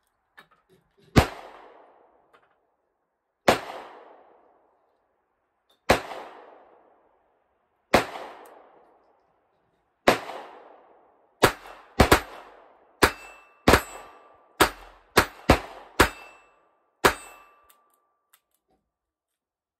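Ruger LCR .22 LR revolver firing Winchester white box rounds, each shot a sharp crack. The shots come slowly at first, about two seconds apart, then in a quicker string from about ten seconds in. Several of the later shots are followed by a faint ringing, typical of a steel plate target being hit.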